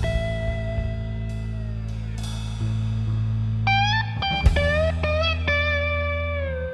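Background music: a blues-style guitar plays held notes that bend and slide, over a steady bass.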